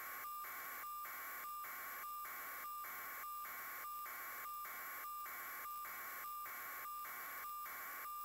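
Electronic static: a steady hiss with a high tone running through it, cut by brief dropouts at an even pace of under two a second.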